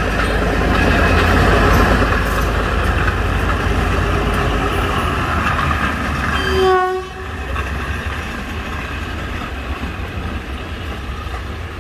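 Davenport diesel locomotive, re-engined with a Cummins KT38L diesel, running under power as it hauls a coach slowly past. A brief horn toot sounds about seven seconds in, and then the engine noise drops off sharply.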